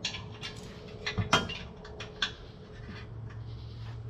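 A few sharp metallic clinks and knocks from hand tools and bolts against a skid plate as it is bolted up, the loudest a little over a second in.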